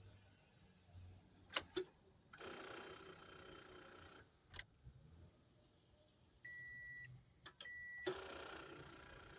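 A 2014 Scion xB failing to start: a few sharp clicks as the key is turned, with no engine cranking, a short steady whir, and two electronic warning-chime beeps. The clicking without cranking is the symptom that the owner blames on a weak battery.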